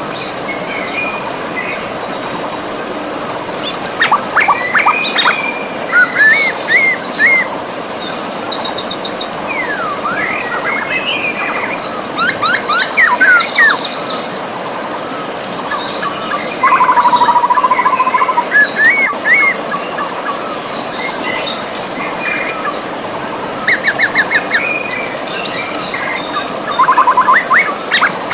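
Steady rush of a flowing river, with several birds singing over it: short chirps, quick rising and falling whistles, and a steady trill a little past the middle.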